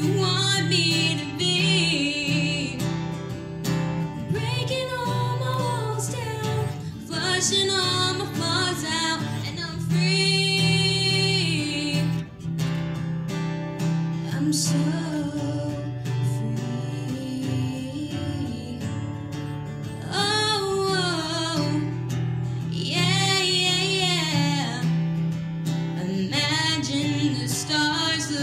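A woman sings a slow song in phrases, over sustained instrumental accompaniment.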